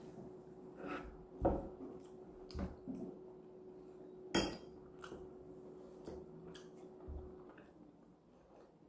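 A metal fork clinking and scraping against a ceramic bowl while eating rice, in scattered sharp clinks, the loudest about four seconds in. A faint steady hum runs underneath and stops near the end.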